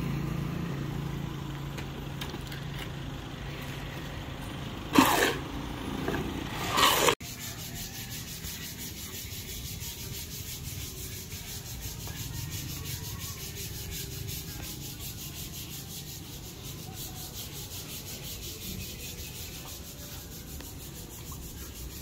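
Hand-sanding a white column: steady, repeated rubbing strokes of sandpaper on the painted surface. This begins after a sudden cut about seven seconds in. Before the cut there is a steady low hum with two brief loud sounds.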